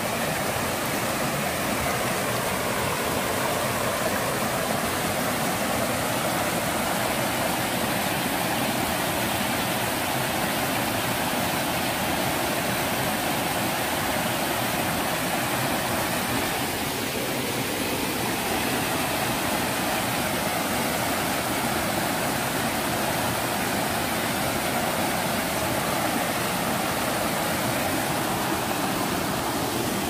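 Valley creek water flowing steadily.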